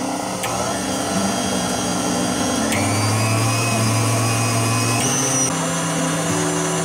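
KitchenAid stand mixer running steadily, its wire whip beating heavy cream and sugar in the stainless steel bowl until the cream thickens.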